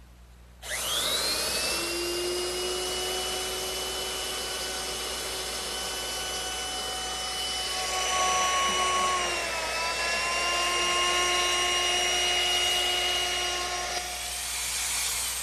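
Electric router starting up with a rising whine, then running steadily while its quarter-round bit cuts the edge of the wooden saddle. Its pitch sags briefly about ten seconds in as the bit takes load, then recovers, and the motor winds down near the end.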